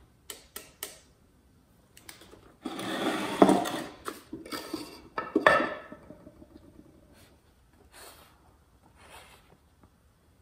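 A thin wooden board being set into a small wooden box: a few light clicks, then a stretch of scraping and knocking of wood on wood, with smaller handling sounds afterwards.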